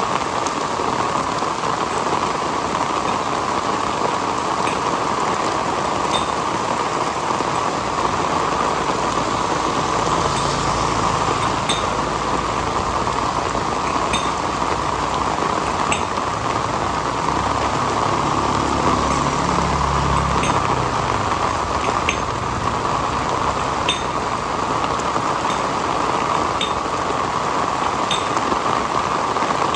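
Heavy rain falling steadily, with sharp drops striking a hard surface every second or two. A low rumble swells and fades in the middle.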